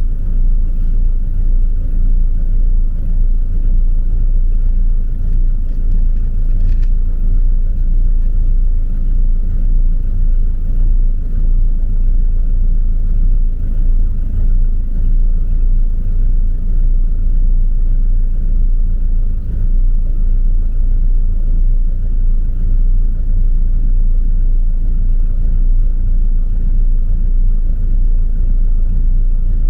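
Camper's 460 big-block V8 idling rough after a cold start, a steady low rumble with no revving. It is the roughest the owner has heard it run, which he puts down to the extreme cold and oil thickened by it.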